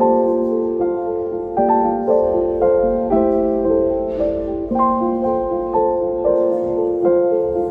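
Background music: gentle piano, notes and chords struck about once a second, each left to ring.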